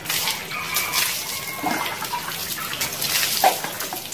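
Water poured from a plastic dipper splashing over a person's shoulders and body and running off, swelling and fading in several pours.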